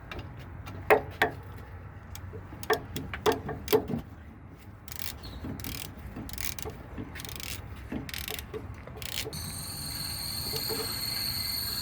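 Ratchet wrench clicking and the clink of a socket on metal as a small 8 mm nut and lock washer are run onto the starter's signal-wire terminal stud. Sharp clicks and taps come in the first few seconds, followed by a run of rasping ratchet strokes.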